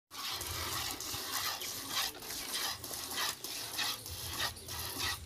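Jets of milk squirting into a plastic bucket as a cow is milked by hand, a hissing squirt about twice a second in a steady rhythm.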